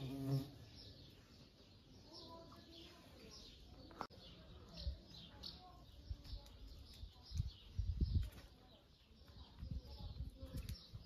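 Small birds chirping, short high calls repeated throughout, with a sharp click about four seconds in and a few low bumps around eight seconds.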